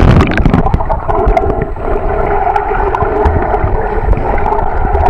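Underwater sound from a submerged camera while snorkeling: muffled gurgling and bubbling with a low rumble and a steady hum, dotted with small clicks.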